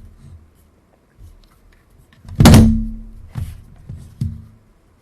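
Loud thunk about two and a half seconds in, then two lighter knocks a second apart, from hard objects knocking on a workbench while working on a camera body.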